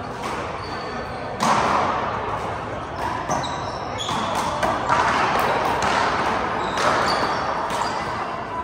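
Handball hits in a doubles rally: the small rubber ball slapped by hand and smacking off the front wall and floor, a series of sharp cracks, the first and loudest about a second and a half in, each ringing on in the hall's echo.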